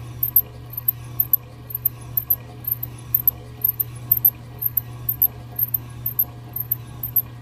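Hobart #12 meat grinder running empty on a Hobart mixer: a steady low motor hum with sharp, very high chirps repeating a few times a second.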